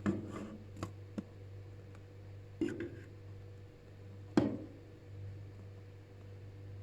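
Several short sharp clicks and knocks of objects being handled, the loudest about four seconds in, over a steady low hum.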